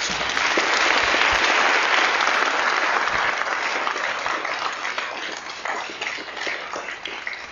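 Audience applauding, loudest over the first few seconds and then slowly dying down.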